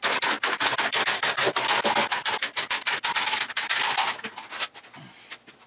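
Metal bar clamps being loosened and lifted off a glued wooden panel, a rapid run of clicks and clatter as they are released and stacked. The clatter thins to a few scattered clicks after about four seconds.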